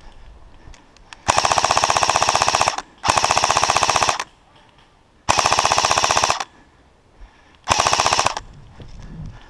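Airsoft rifle firing four rapid bursts on full auto, the last one the shortest.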